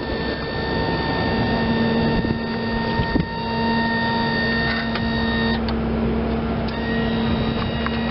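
Kohler 25 HP gas engine of a Hustler Raptor zero-turn mower running at a steady speed, with a few brief clicks over the running.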